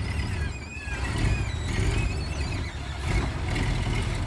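Heavy diesel engine of a loaded dump truck running with a deep low rumble that swells and dips a little, with thin high squeaks over it now and then.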